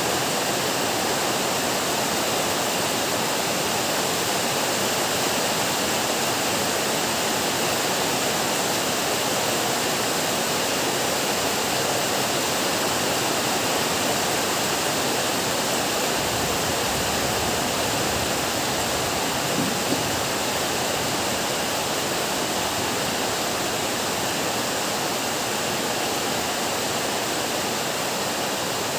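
Heavy rain pouring down in a steady, even hiss, with a low rumble swelling briefly a little past the middle.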